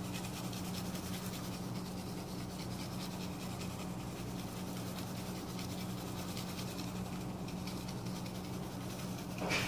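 A steady low hum, with faint dry rustling and scratching as grated coconut is shaken from a plastic packet onto rolled-out dough.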